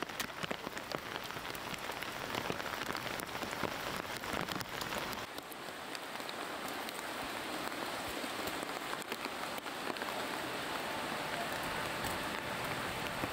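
Heavy rain falling, with many close drops tapping sharply; about five seconds in it turns to a smoother, steadier hiss.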